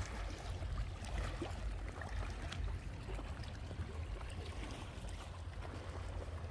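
Wind rumbling on the microphone in uneven gusts, with scattered crunches of footsteps on loose rocks.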